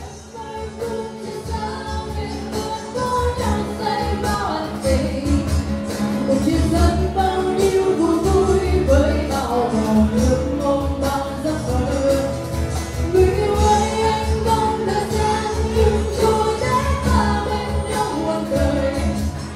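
Live band with a woman singing lead over electric guitar and a steady drum beat. The sound fades in over the first couple of seconds.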